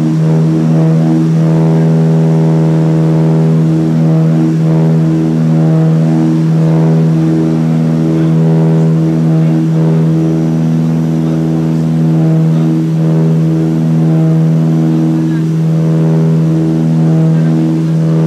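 Propeller aircraft's engines and propellers droning steadily, heard from inside the cabin on the approach to land: a loud, constant low hum with a slight wavering.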